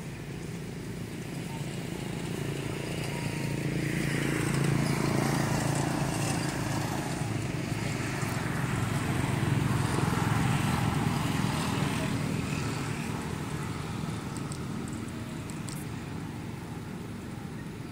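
A motor vehicle passing by: its engine sound swells over a few seconds, stays up for several seconds, then slowly fades away.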